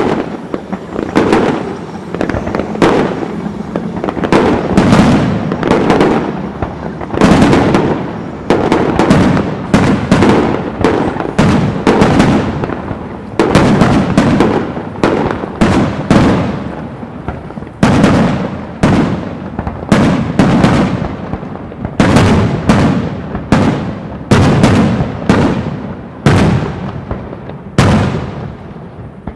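Fireworks display: aerial shells bursting one after another, about one or two bangs a second, each followed by a fading rumble.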